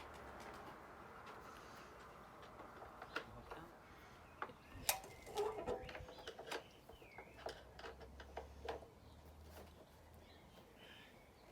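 Scattered light clicks and knocks of hand tools and small parts being handled while working on a motorcycle's panel screws, the loudest about five seconds in.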